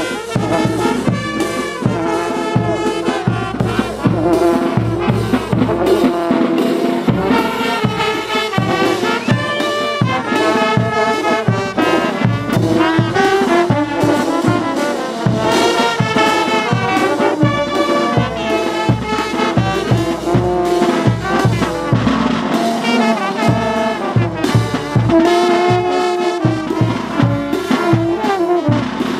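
A brass band of trumpets and trombones plays a dance tune, with drums keeping a steady beat.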